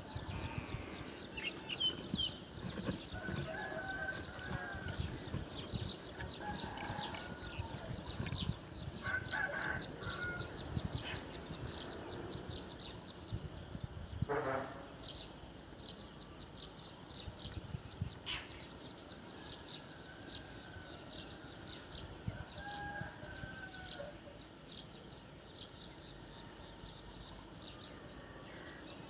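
Birds calling outdoors: several arched, crowing calls like a rooster's, over a steady run of short high chirps.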